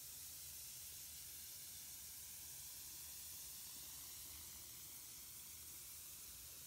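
Lush 'Mermaid' bath bomb fizzing as it dissolves in bathwater: a faint, steady hiss, with a faint low hum beneath it.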